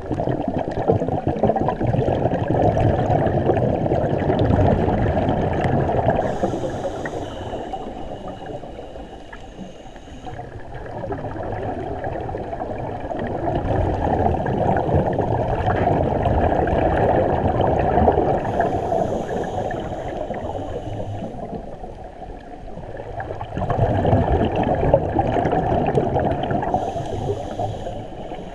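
Scuba divers' breathing heard underwater: long gurgling rushes of exhaled bubbles from the regulator, several seconds each, alternating with quieter gaps where the regulator's thin inhalation hiss comes through.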